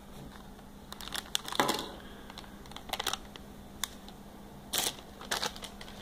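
Plastic blind bag being crinkled and torn open by hand: a run of short crinkly rustles and clicks, loudest about one and a half seconds in. Small clicks follow as the little plastic toy train is tipped out onto a wooden tabletop.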